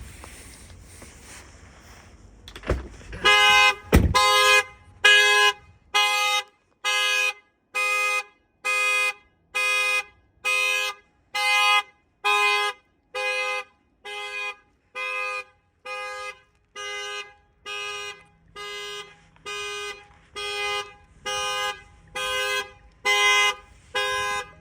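Two heavy thumps, then the 2022 Tesla Model 3's anti-theft alarm going off: its dual-tone horn honking in a steady series of short blasts, about one a second.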